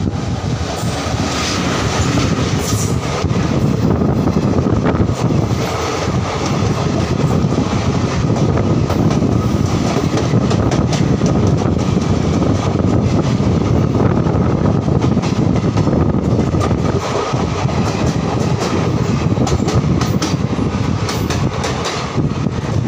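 Passing Indian Railways passenger train, hauled by an electric locomotive, running by on the adjacent track close to the microphone: a steady loud rumble of wheels on rail with rapid clicking as the coach wheels cross the rail joints.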